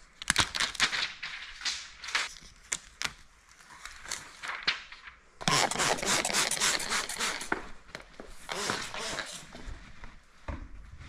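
A hand trigger spray bottle pumped in quick repeated squirts, wetting a piece of paint protection film with water before it goes on the Jeep; the main run of spraying is just past the middle, with a shorter one near the end. Near the start, sharp crackling clicks of the plastic film being handled.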